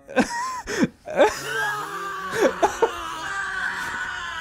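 A man's short, broken vocal sounds, a string of separate breathy cries rather than words, with quiet background music underneath.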